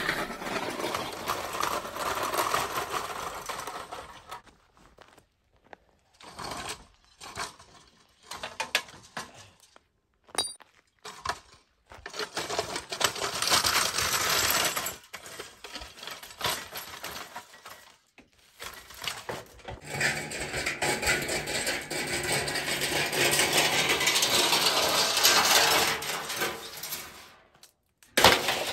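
Rusty scrap-metal furniture being dragged and broken apart: clattering and clanking metal in a string of short clips with abrupt cuts between them, and a longer stretch of continuous clatter in the second half.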